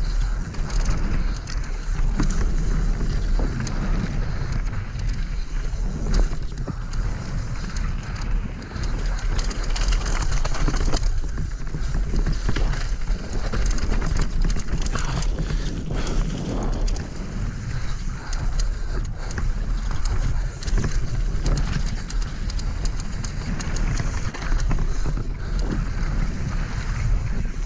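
Mountain bike descending a rough downhill trail at speed: wind buffeting the microphone, tyres rolling over dirt, gravel and rocks, with frequent rattles and knocks from the bike over the bumps.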